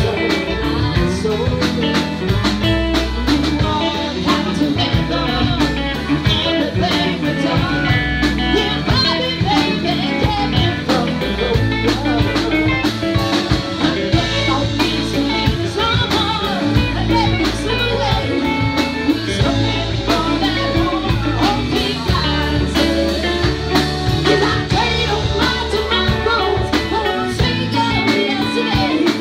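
A live blues band playing: drum kit, electric bass and guitars, with a woman singing into a microphone.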